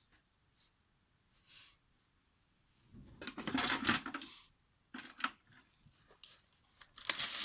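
Close rustling and handling noises, most likely a paper tissue, with a brief sniff-like breath about a second and a half in. There are louder rustling stretches a few seconds in and near the end, with a few clicks between them.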